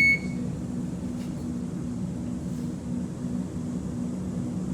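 Steady low hum inside the carriage of an X'Trapolis 2.0 electric suburban train standing at a station platform.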